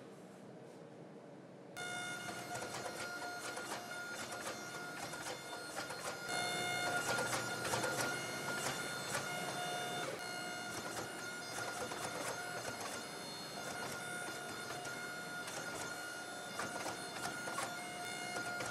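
Hydraulic forging press running with a steady whine while it squeezes a glowing layered steel billet, with crackling ticks from the hot steel. The whine starts abruptly about two seconds in and swells and eases through the pressing.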